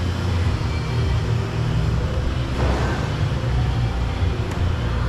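Steady low mechanical rumble, like vehicle traffic, with a brief rustling scrape about halfway through and a light click near the end.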